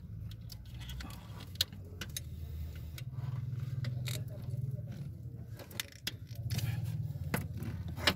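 Metal hand tools clinking and clicking against engine-bay parts as a hex key and connectors are worked around the alternator: scattered sharp clicks, the loudest about a second and a half in and again near the end. A steady low rumble runs underneath.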